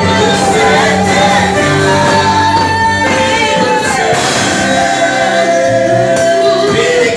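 Live gospel worship music: a group of singers holding long, sliding notes into microphones, backed by a drum kit.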